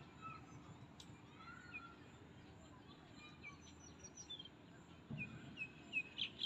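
Birds chirping faintly over low outdoor background noise, with a quick run of louder, repeated bird calls starting about five seconds in.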